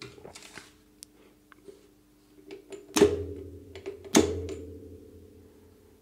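Electrical contactor clacking twice, about a second apart, around the middle, as it is switched by the start and stop push buttons. Each clack is followed by a short low buzz. Lighter clicks of button handling come before, over a faint steady hum.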